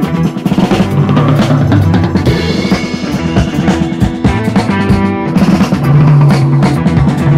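Background music with a drum-kit beat.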